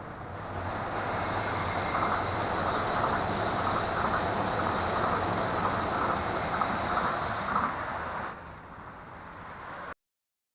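A large vehicle passing close by: a loud, steady roar that swells over the first two seconds, holds for about six seconds, then drops off sharply, with the sound cutting out abruptly near the end.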